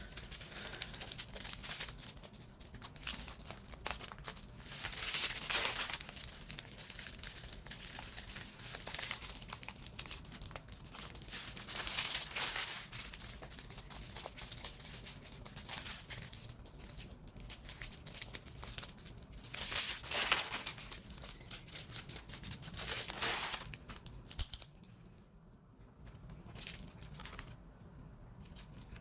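Small plastic bags of diamond painting drills crinkling as they are handled and sorted, with a few louder crinkles along the way; the rustling grows quieter in the last few seconds.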